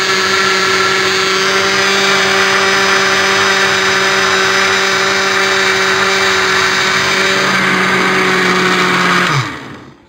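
Electric countertop blender running loud and steady, pureeing sliced cucumbers into a green liquid. About nine seconds in it is switched off and the motor's pitch drops as it spins down.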